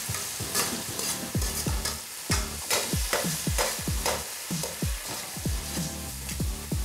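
Vegetables and sauces sizzling in a stainless steel pan while a metal utensil stirs and scrapes against the pan, with low thumps repeating at a steady beat underneath.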